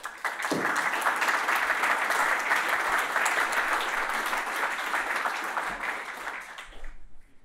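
Audience applauding, a dense patter of many hands clapping that begins at once and fades out near the end.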